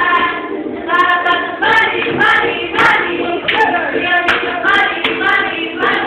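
A group of girls singing together in unison in short rhythmic phrases, with hand claps on a steady beat a little under two a second.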